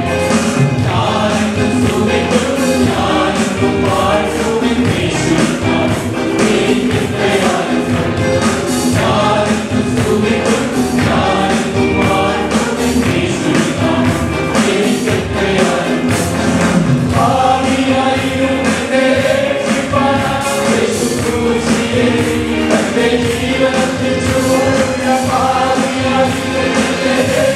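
Congregation singing an old worship song together in chorus, with instrumental accompaniment and a steady beat.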